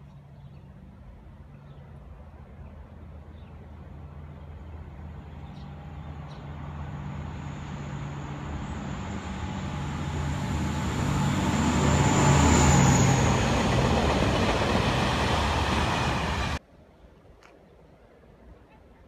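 SBB Am 843 diesel locomotive approaching and passing with its wagons: a steady low diesel drone with a faint high whine, growing louder to a peak about two-thirds of the way through. The sound cuts off abruptly near the end, leaving quiet background noise.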